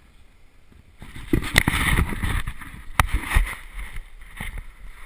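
Handling noise from a small camera's own microphone: knocks, clicks and rustling as the camera is handled and fitted into a hexacopter's camera mount. It starts about a second in and comes in irregular bursts, with a sharp click about three seconds in.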